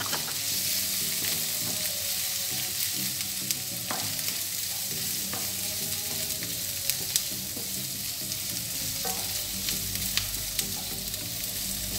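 Diced tofu sizzling in hot oil in a non-stick frying pan, stirred with a wooden spatula that knocks lightly against the pan a few times.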